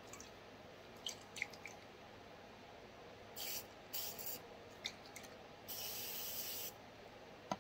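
Aerosol spray can hissing onto pistol parts in three bursts: two short ones, then one lasting about a second, after a few soft clicks of handling.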